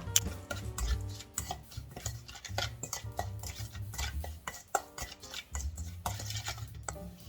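A utensil clinking and scraping against a bowl in quick irregular clicks while food is stirred and tossed, over light background music.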